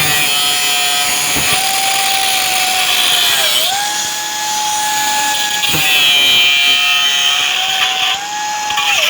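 Angle grinder running at speed and cutting metal on a wheel-hub bearing: a steady high whine over a grinding hiss. The pitch sags briefly about three and a half seconds in and again near the end as the disc is loaded.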